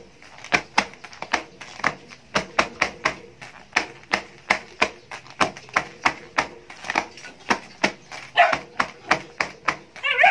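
Full aluminium foil baking tray knocked and jostled on a wooden table: a quick, uneven run of sharp clicks and foil rattles, about three or four a second.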